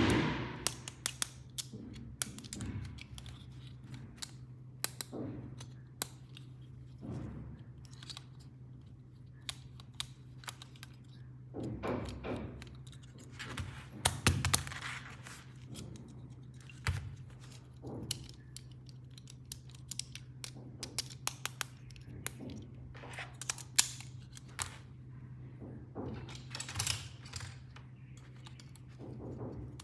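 Plastic toy pieces and packaging being handled during an unboxing: a string of clicks, taps and knocks with a few longer crinkling rustles, over a steady low hum.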